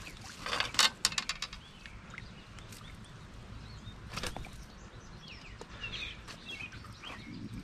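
Fishing rod and landing net being handled as a pike is netted at the water's edge. A quick run of sharp clicks and rattles comes about a second in and another click near the middle, over a steady low rumble, with a few short bird chirps near the end.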